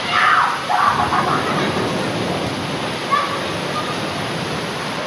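Heavy rain pouring down in a steady rush. Brief raised voices break through during the first second and again about three seconds in.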